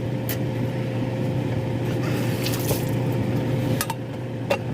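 Wet, squishy liquid sounds of canned tomatoes being worked into a pan of cooked vegetables, with a few light clicks near the end, over a steady low hum.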